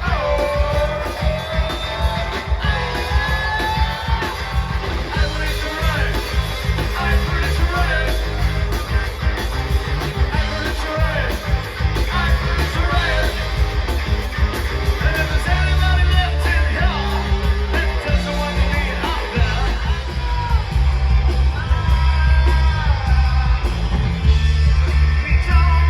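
Music with a singing voice and guitar over a strong bass line.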